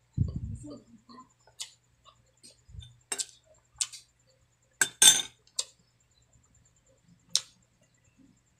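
Metal spoon clinking against dishes while eating: a dull thump at the start, then a string of sharp clicks, the loudest a ringing clink about five seconds in.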